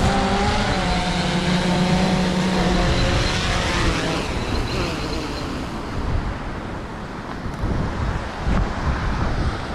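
A steady motor hum that fades out about three seconds in, leaving a rushing noise without any clear pitch.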